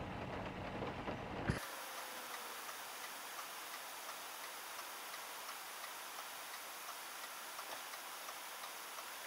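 A short click about one and a half seconds in, then a steady hiss with faint, regular ticking inside a car's cabin, recorded through a dash cam's weak built-in microphone.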